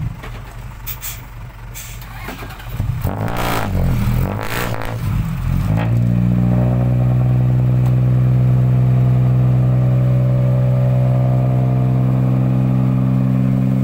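Isuzu dump truck's diesel engine revving unevenly with a few knocks, then held at high, steady revs from about six seconds in while it drives the hydraulic hoist raising the loaded bed.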